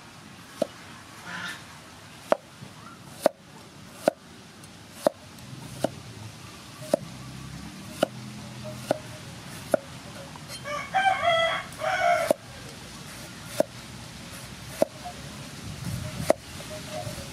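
Cleaver slicing cucumber and green tomato on a thick wooden chopping board, a sharp knock on the board about once a second. A rooster crows once, about ten and a half seconds in, for under two seconds.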